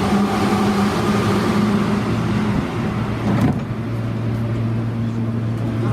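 Steady vehicle running noise with a low hum, which changes abruptly about three and a half seconds in.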